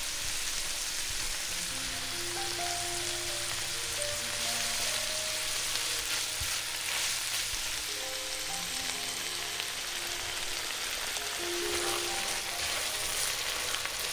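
A steady crackling hiss, with short, soft melodic notes of background music over it.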